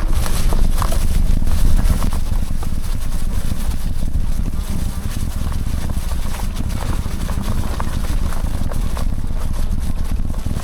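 Off-road e-bike rattling and knocking as it rides over a rough trail, with a steady low rumble of wind buffeting the phone microphone.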